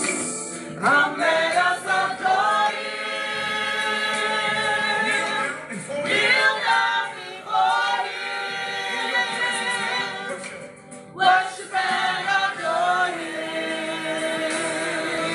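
Small gospel choir of women and men singing together, holding long chords, with a brief break about eleven seconds in.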